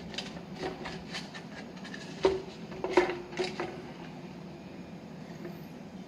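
Brass coffee-grinder parts knocking against each other and the plastic bottle as they are dropped and settled into a cut-off bottle of Coca-Cola: a few light knocks, the two loudest about two and three seconds in, each with a brief metallic ring.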